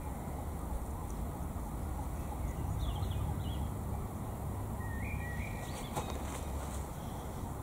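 Outdoor garden ambience: a steady low rumble of breeze on the microphone, with a few short bird chirps about three seconds in and again around five seconds in.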